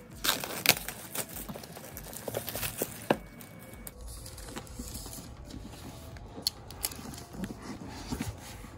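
Clear plastic shrink-wrap crinkling and crackling as it is peeled off a cardboard laptop box, with scattered sharp clicks and rustles from the box being handled.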